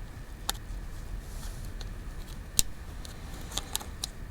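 A few small sharp clicks and taps from handling tools and iPhone parts during reassembly: one about half a second in, a louder one in the middle, and a quick run of three near the end, over a low room rumble.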